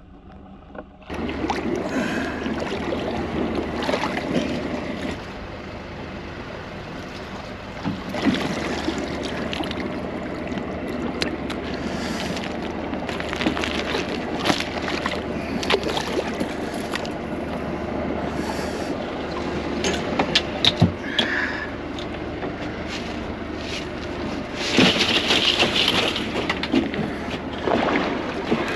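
Water sloshing against a small boat, with scattered knocks and clatter from handling gear on board and a louder rush of noise near the end.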